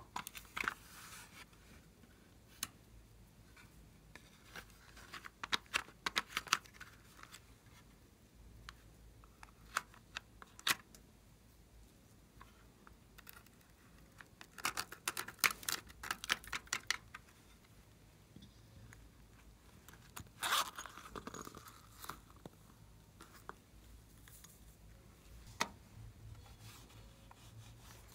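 Plastic clicking and scraping: a hard plastic toy makeup compact being handled and opened, and a small plastic spatula scraping and tapping pressed eyeshadow out of its pans, in scattered short bursts of clicks and scratches.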